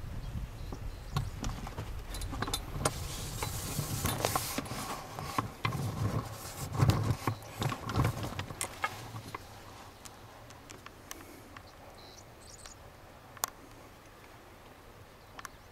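Rustling and handling noises as cotton plants are pushed aside over a fabric drop cloth, many short scrapes and clicks over a low rumble. It grows quieter about nine seconds in, leaving a few faint clicks.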